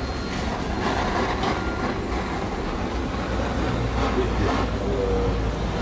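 Handheld butane kitchen torch running with a steady rushing flame, caramelizing the sugar on top of a crème brûlée.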